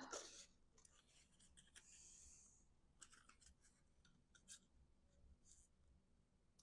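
Faint handling of cardstock: light rustles and a brief soft sliding hiss about two seconds in, with a few small taps as paper pieces are fitted together.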